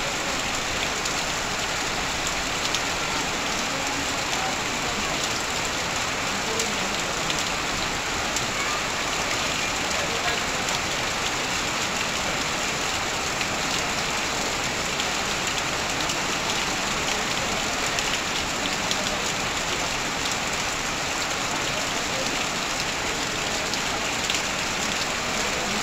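Heavy rain pouring down on corrugated metal sheeting and leaves, with water running off a roof edge. It makes a steady, dense hiss with scattered sharp drop ticks.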